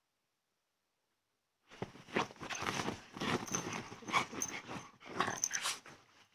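A small dog making rough play noises, a run of short growly, huffing bursts. They start about two seconds in and go on for about four and a half seconds.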